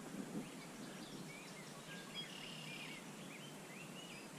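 Faint birdsong: small birds giving a run of short rising and falling chirps, starting about a second and a half in, over a steady low outdoor hiss.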